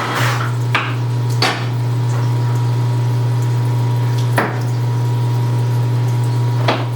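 Precision Matthews 1640 metal lathe running with a steady low hum as it turns a large steel blank supported by a live center, with a few sharp clicks or knocks over the hum.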